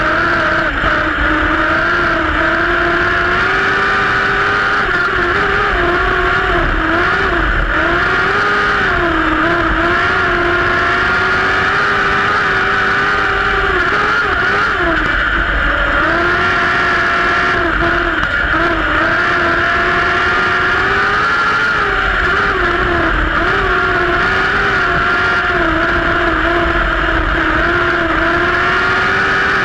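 Compact speedcar engine racing at high revs, heard from on board the car, its pitch dipping and rising over and over as the throttle is lifted and reapplied through the corners.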